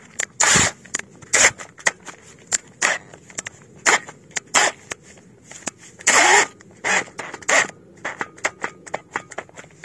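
Cordless drill-driver working self-tapping screws into a steel gate bracket: a string of short, irregular clicks and bursts, the longest about six seconds in.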